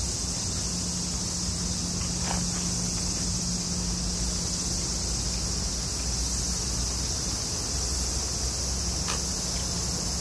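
Steady, high-pitched chorus of insects shrilling without a break, over a faint low steady hum.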